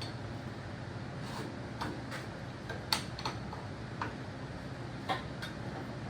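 A handful of sharp, irregular metallic clicks and taps from hand tools loosening the exhaust clamp on a John Deere 3020 tractor, over a steady low hum. The loudest click comes about three seconds in.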